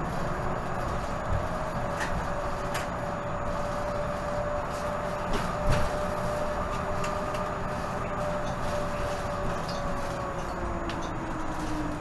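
Cabin noise of a 2018 Nova Bus LFS diesel city bus under way: steady engine and road noise with a high drivetrain whine. Scattered rattles and knocks, the loudest a little under six seconds in, and a lower whine that falls in pitch near the end.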